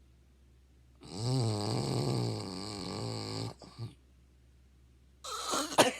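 A person snoring: one long, loud, wavering snore lasting about two and a half seconds with a short snort after it, then a cough starting near the end.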